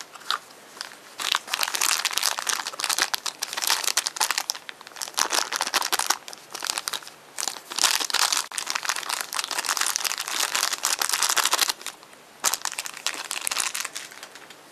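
Thin plastic wrapper crinkling and crackling as it is unwrapped by hand from a small toy, in bursts with brief pauses, stopping near the end.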